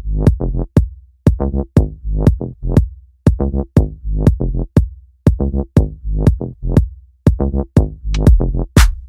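Electronic background music with a drum-machine beat and short synth notes.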